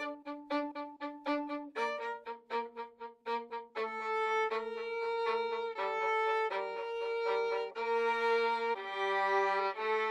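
Solo violin playing a melody: short detached notes at about four a second for the first few seconds, then long held notes from about four seconds in.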